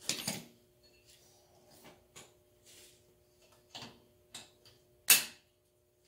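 Irregular metal clinks, taps and scrapes of hand tools and parts being worked on a John Deere 4720 compact tractor's front axle, with one sharp, loud metal clank about five seconds in. A faint steady hum sits underneath.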